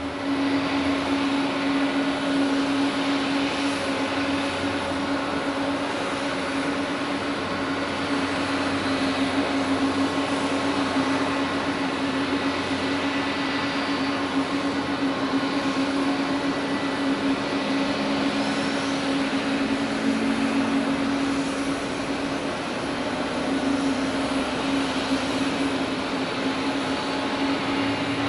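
Jet airliner engines running at a steady level, a constant low hum over an even rushing noise that holds without rising or falling.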